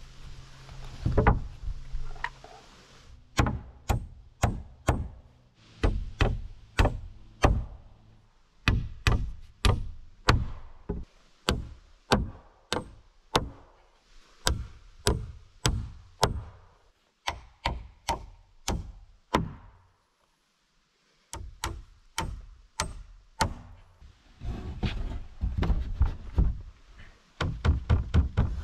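Hammer driving nails into rough-sawn pine framing lumber: a long series of separate blows, about one or two a second, with a brief break about twenty seconds in.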